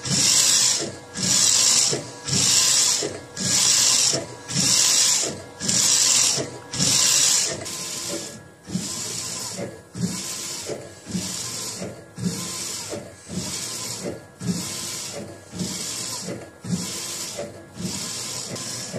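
AnaJet mPower direct-to-garment printer printing onto a T-shirt, its print-head carriage sweeping back and forth about once a second. The passes grow quieter about halfway through.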